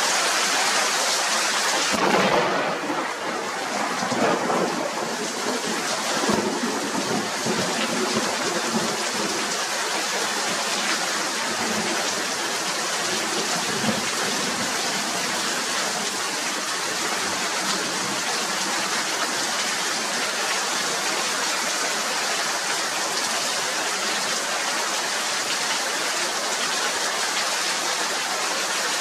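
Heavy rain pouring down steadily, with thunder rumbling through the first several seconds.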